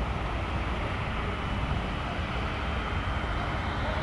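Jet airliner engine noise: a steady rumble with a faint high whine over it.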